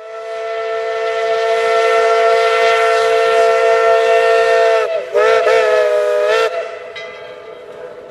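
Steam locomotive whistle sounding several notes at once: one long blast of about five seconds, a brief break, then a shorter, wavering blast that ends about six and a half seconds in and echoes away.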